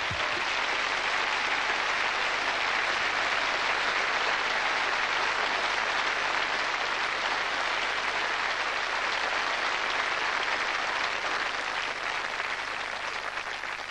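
Studio audience applauding steadily, a dense sustained clapping that begins to ease off near the end.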